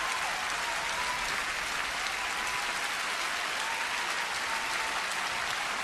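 A large concert audience applauding steadily in a long, unbroken ovation.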